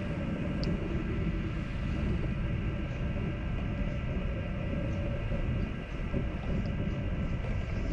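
Steady rumble of a moving vehicle, with road and wind noise and a few faint steady hums over it.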